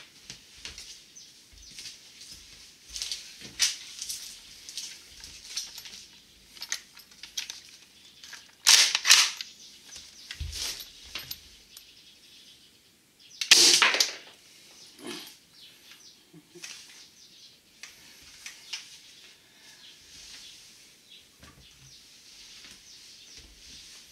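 Airsoft shotgun shots at a 9H tempered-glass screen protector: two loud sharp bursts, about nine seconds in and again about four seconds later, the second with a deeper thud. The glass cracks under the hits. Lighter clicks and handling noises fall between the shots.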